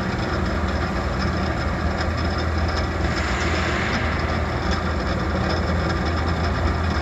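Freshly repaired sigma blade mixer running steadily under power, its blades turning with a low, even hum, running pretty quiet.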